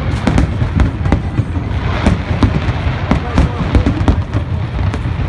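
Aerial fireworks display: a dense, unbroken string of bangs and crackles, several reports a second, over a constant heavy rumble.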